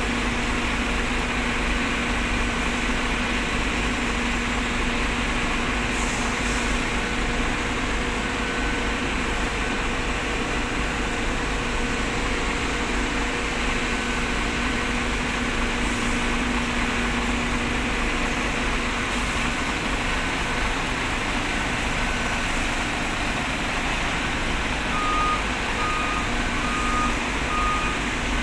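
Diesel dump truck engines running with a steady drone while a reversing alarm beeps at an even pace; a lower-pitched beep takes over near the end.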